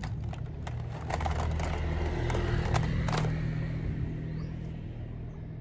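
Plastic toy guns clicking and knocking together as they are handled in a basket, several sharp clicks in the first three seconds. Under them a steady low engine rumble swells in the middle and fades near the end.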